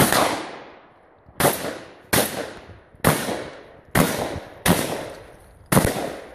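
A string of seven shotgun shots, fired about a second apart or a little less. Each loud crack is followed by a short, fading echo.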